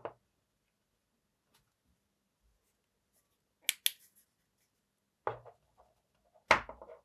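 Flashlights handled on a table: a quick double click of a flashlight switch a little after halfway, then two duller knocks near the end.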